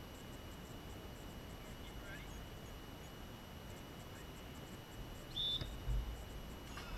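Referee's whistle, one short blast about five and a half seconds in, signalling the penalty kick to be taken, followed by a low thump just after it.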